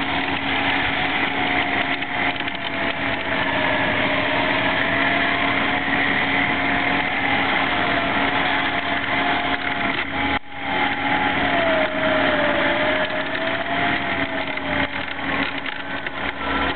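Off-road SUV's engine running hard under load as it churns up a deep-snow slope, its pitch wavering up and down as the revs rise and fall. The sound drops out briefly about ten seconds in.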